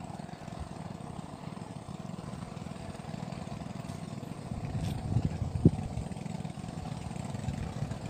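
A small engine running steadily at low revs, with a single knock a little over halfway through.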